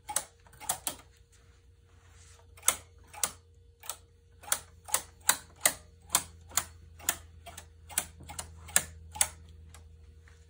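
Metal needles of a flatbed knitting machine being pulled forward out of the needle bed by hand, giving a run of sharp clicks: a few scattered at first, then two or three a second, stopping shortly before the end.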